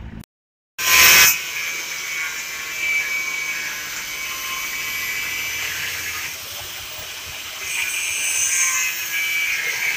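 Handheld angle grinder running with its disc against a metal lever, grinding it down: a steady, high hissing whine that starts loudly about a second in.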